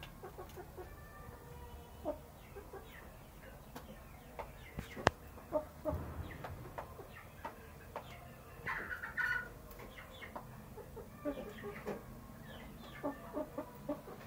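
Domestic chickens clucking softly while feeding, with scattered sharp taps of pecking and one louder call a little past the middle.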